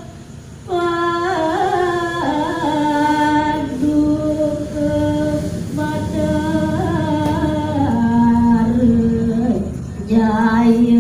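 A woman's solo voice chanting a kakawin verse, Balinese-style sung Old Javanese poetry, unaccompanied, in long held notes that slide slowly from one pitch to the next. The line begins after a short breath pause just under a second in, and another phrase starts near the end.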